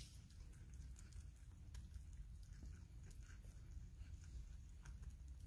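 A woodchuck (groundhog) chewing food held in its paws: faint, irregular little crunches and lip-smacking clicks.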